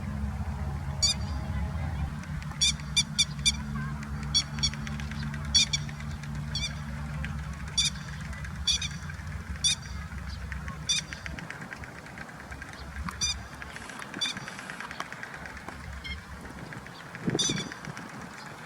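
Grey-headed lapwings calling: short, sharp, high calls, given singly and in quick runs of up to four, over a steady low rumble that fades about halfway through.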